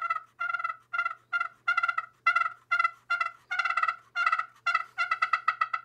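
Single-sided glass turkey pot call played with a striker, sounding a string of short hen-turkey notes, about two to three a second, that come faster near the end. The glass surface has been roughed up over only a small patch, which the player says is not yet enough for a full purr.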